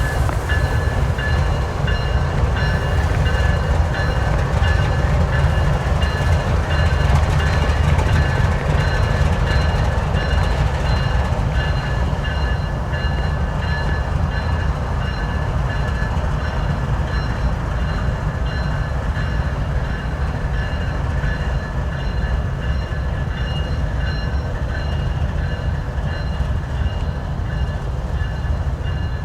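Train rolling past with a steady, heavy rumble and a few faint high steady tones.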